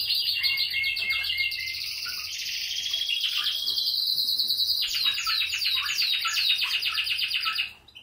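Domestic canary song: a long, loud run of rapid rolling trills, changing speed and pitch, with a string of repeated sliding whistled notes over the trill in the second half. It stops abruptly near the end.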